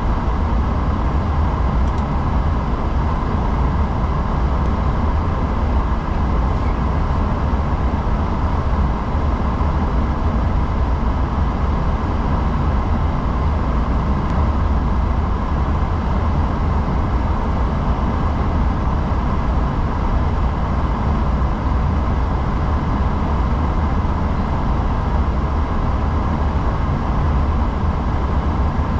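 Steady flight-deck noise of an Airbus A340-600 on the ground with its engines running: an even low rumble under a constant airflow hiss, with a faint steady whine.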